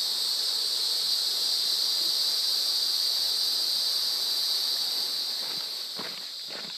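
Steady, high-pitched drone of a summer insect chorus in the forest. Near the end, footsteps on the dirt and rock trail begin.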